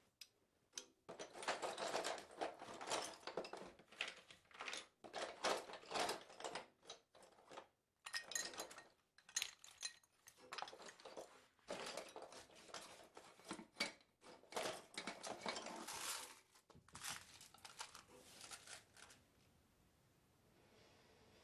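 Sound-design score made of dense clicking and crackling noises in irregular bursts of one to a few seconds, broken by short gaps and dying away a couple of seconds before the end.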